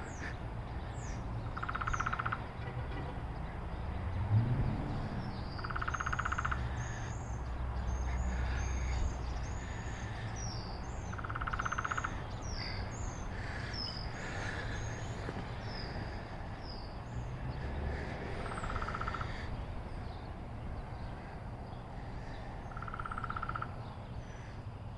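A woodpecker sounding in five short, rapid bursts of pulses a few seconds apart, with small birds chirping high over a steady low rumble.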